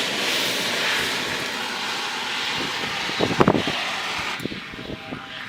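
Steady hissing rush from the seized wheel hub being heated and quenched, either the oxy-acetylene torch flame or steam off the hot metal, easing off near the end. A few sharp metal clanks about three seconds in, with another shortly after.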